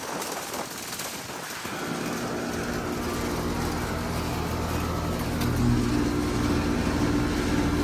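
Bryant Legacy Line heat pump outdoor unit running: an even rush of air from the condenser fan, joined about two seconds in by a steady low hum from the Copeland scroll compressor that grows louder and stays steady.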